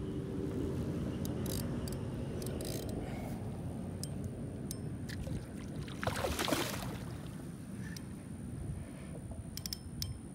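A large hooked grass carp thrashing and splashing at the water's surface, loudest about six seconds in, over a steady low rumble. Scattered light clicks come before and after the splash.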